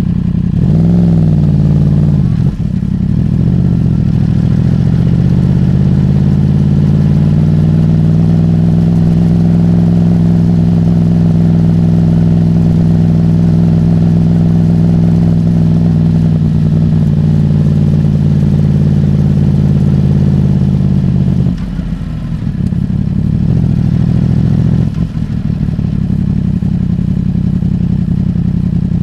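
Yamaha YZF-R1's crossplane inline-four engine through a MIVV carbon exhaust, heard from the rider's seat at low road speed. A quick rise and fall of revs in the first couple of seconds is followed by a long steady pull with the pitch climbing slowly. About three quarters of the way through, the throttle closes and the engine drops to a lower, rougher note.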